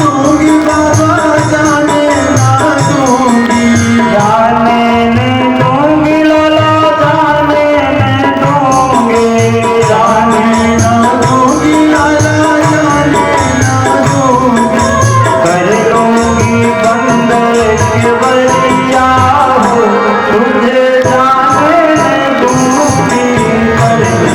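Instrumental interlude of a devotional bhajan: a melody instrument plays held notes that step up and down over a steady hand-drum beat, with jingling percussion keeping time.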